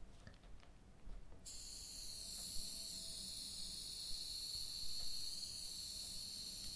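Unlit butane torch lighter releasing gas: a steady high hiss that switches on abruptly about a second and a half in as the valve is opened, and keeps going.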